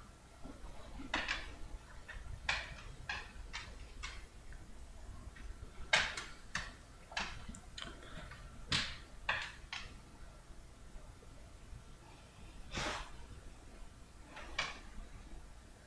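Computer mouse clicked and dragged on a desk while drawing on screen: about twenty short, irregular clicks and scrapes, in loose clusters with pauses between them.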